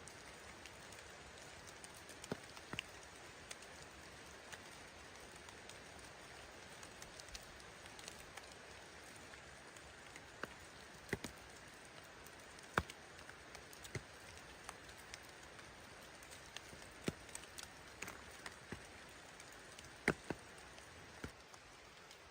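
Light rain in a forest: a steady soft hiss with scattered, irregular louder drops.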